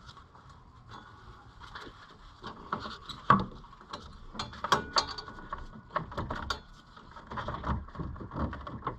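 Hand wrench work on metal engine fittings: irregular clicks, clinks and knocks of the tool on turbo oil-line fittings as they are undone, starting a couple of seconds in, the sharpest knock about three seconds in.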